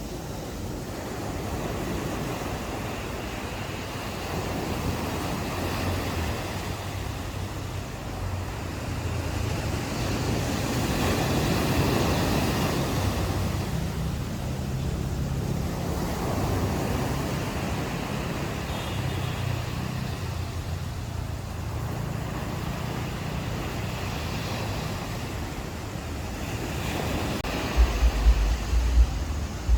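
Ocean waves washing onto a beach, a steady surf hiss that rises and falls in slow swells, with a low rumble underneath. Near the end, wind buffets the microphone in a few low thumps.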